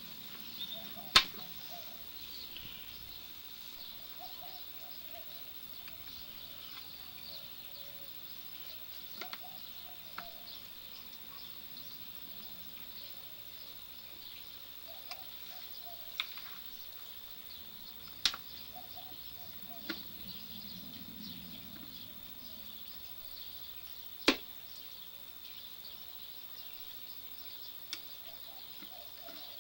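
Steady high insect chirring with sharp clicks or knocks at irregular intervals, several in all, the loudest about a second in.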